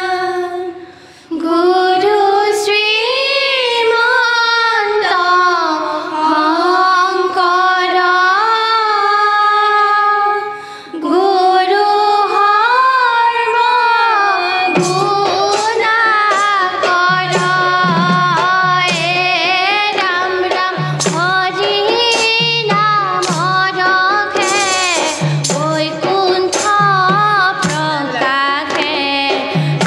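Group of girls singing an Assamese dihanam devotional chant in unison, with long held and wavering notes and two short breaths between lines. About halfway through, a hand drum and bright metallic clinks join in a steady beat under the singing.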